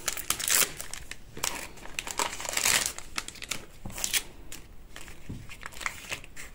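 Crinkling of a mystery-figure blind bag's packaging in the hands: the pouch, the small plastic bag holding the figure and a folded paper leaflet being handled and unfolded. It comes in irregular bursts, loudest about halfway through.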